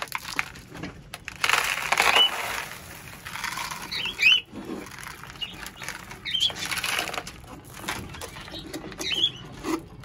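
Bursts of rustling and scraping as droppings and nest litter are tipped and knocked out of a cockatiel nest box into a pot, with a few short cockatiel chirps.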